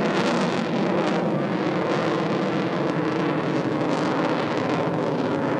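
Grumman F-14 Tomcat jet fighter in flight overhead: a steady, loud rush of jet engine noise with no break, wavering slightly in the higher part of the sound.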